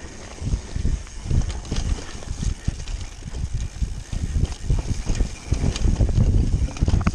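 Mountain bike descending a rough dirt and root trail: tyres rumbling over the ground, with frequent uneven thumps and rattles as the bike hits bumps, and wind buffeting the microphone.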